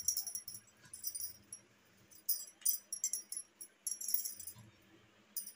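Glass bangles jingling on the wrists in short, irregular clusters about once a second as hands roll wheat dough into balls.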